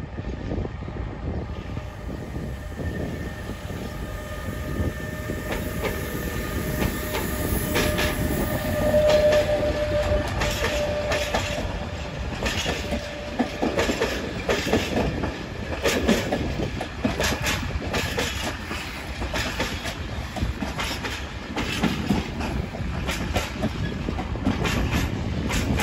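Container freight train hauled by a Renfe series 253 electric locomotive passing close by: a steady rumble and whine as the locomotive goes by, then the container flat wagons' wheels clacking over the rail joints, the clacks growing denser from about a third of the way in.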